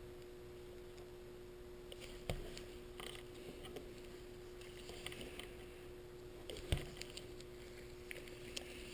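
Faint handling sounds: a few sharp clicks from hand wire strippers and rustling of gloved hands working a thin wire, over a steady faint hum. The loudest click comes about two-thirds of the way through.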